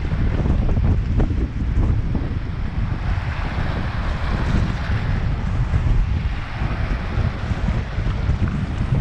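Wind buffeting the microphone in a loud, gusting low rumble, with waves washing on a lake beach, their hiss swelling around the middle and again near the end.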